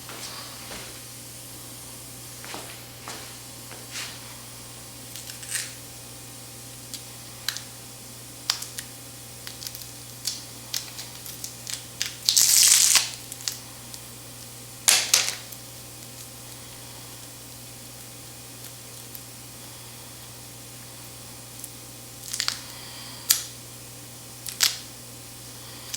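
Tools and parts of a tire plug repair kit being handled: scattered clicks, taps and rustles. There is a brief hissing burst about halfway through, and a few sharper knocks follow. A steady low hum sits underneath.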